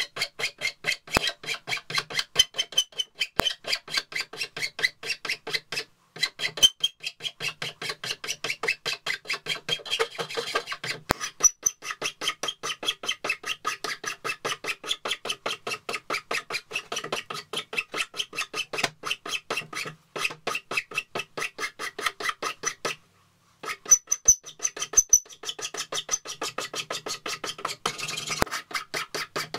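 Large flat steel file rasping in quick, even back-and-forth strokes across a wooden hammer handle held in a vise, shaping and smoothing the old wood. The strokes stop briefly a few times, then resume.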